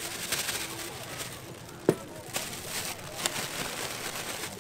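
Night-market stall ambience: a steady background murmur of the market with scattered sharp clicks and clatter, the loudest a single knock about two seconds in.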